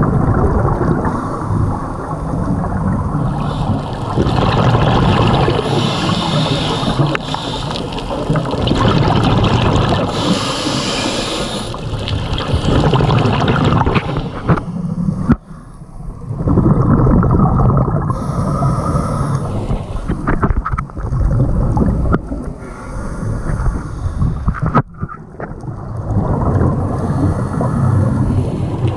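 Scuba diver breathing through a regulator underwater: hissing inhalations alternating with low bursts of exhaled bubbles.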